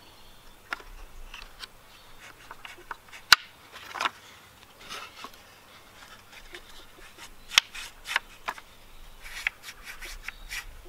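Wooden parts of a rubber-band ping pong ball shotgun being handled and worked: wood scraping and sliding on wood with scattered light clicks, and two sharp clicks, the first about three seconds in and the second about four seconds later.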